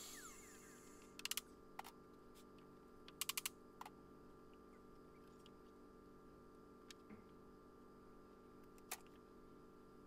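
Faint light clicks and clatter of tools and small parts being handled on a table: a quick cluster about a second in, another of about five clicks a little after three seconds, then a few single clicks. Between them there is only a low steady hum.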